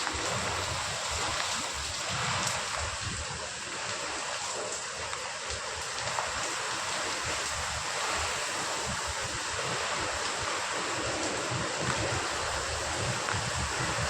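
Heavy rain pouring steadily in a storm, with gusts of wind buffeting the microphone.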